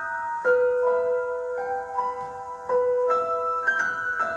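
Performance music: a slow keyboard melody of single held notes.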